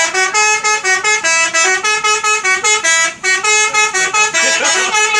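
Bus's telolet horn, a multi-tone musical air horn, playing a fast, loud tune of short notes at about five a second, with a brief break about three seconds in before the tune carries on.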